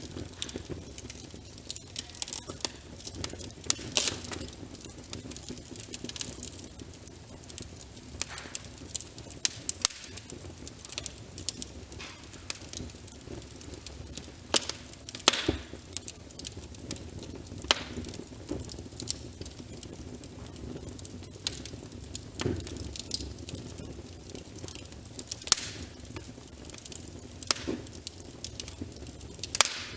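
Wood fire crackling with irregular sharp pops, a few of them loud, over a steady hiss of rain.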